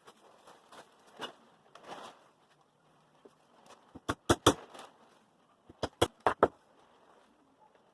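Light handling and rustling, then two quick groups of sharp knocks about two seconds apart, four or five knocks each, typical of tapping or striking a wooden workpiece in a woodworking job.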